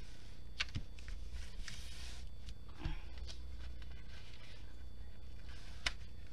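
Hand pressing and lifting the clear plastic protective film on a diamond-painting canvas: a soft rustle of film about two seconds in and a few light crinkles and ticks, over a steady low hum.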